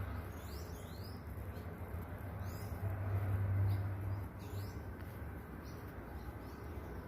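Small birds chirping at dawn: many short, high chirps in quick succession, over a low steady rumble that swells about three seconds in.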